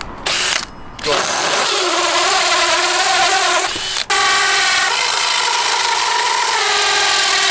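Cordless DeWalt 18V drill driving a hole saw through a timber batten: a steady motor whine with the rasp of the saw cutting wood, boring holes for downlights. It stops briefly about four seconds in, then another hole is cut.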